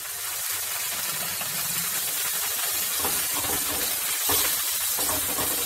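Onions, tomatoes and cashews in a hot pan sizzling and hissing steadily as a little water goes in, with a wooden spoon stirring through it.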